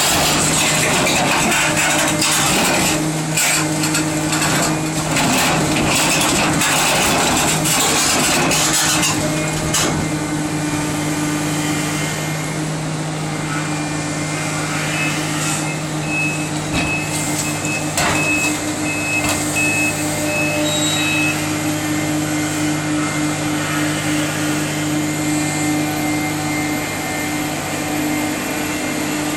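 Link-Belt 460 X2 excavator's diesel engine running steadily under hydraulic load, with loud clattering for about the first third. Near the middle, a backup alarm beeps several times.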